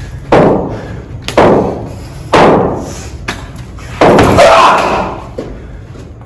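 Cricket balls striking bats, nets and boards in an indoor net hall: a series of sharp knocks about a second apart, each ringing on in the echo of the hall, the last and longest about four seconds in.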